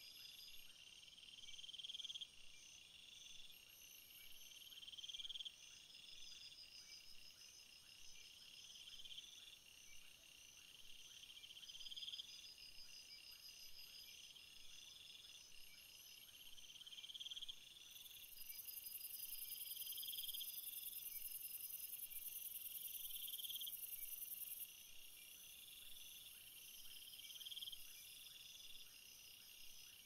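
Faint crickets chirping: a chirp train roughly every two seconds, with a higher, thinner steady trill above it that swells for several seconds in the second half.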